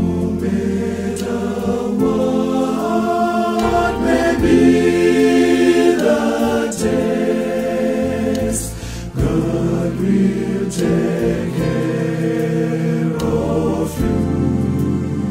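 Male choir singing in harmony, men's voices holding full chords over deep bass notes, the chords changing every second or two.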